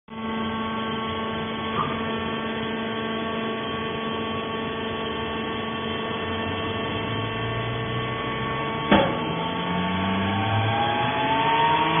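Steady electric hum of a vertical hydraulic baler's motor and pump running, with a light click about two seconds in and a sharp knock about nine seconds in. A rising whine joins in over the last couple of seconds.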